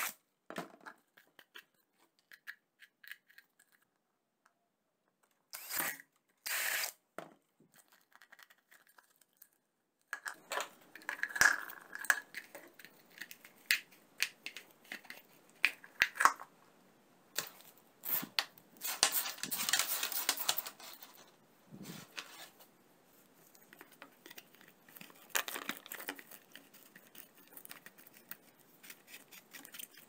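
Plastic and metal parts being handled and fitted together by hand: scattered clicks, taps and scrapes, sparse at first and busier from about ten seconds in.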